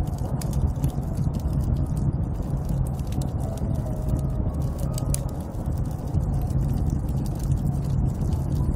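Snowstorm wind blowing steadily, a deep rumble with faint wavering whistles, and scattered small crackles throughout.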